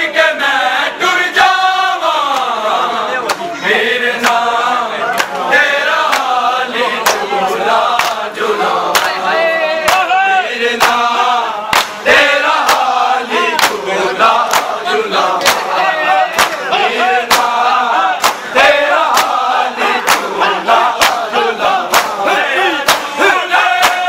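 A crowd of men chanting a Shia Muharram lament in unison while performing matam, slapping their bare chests with open hands. The slaps come as a steady rhythm of sharp cracks through the chanting.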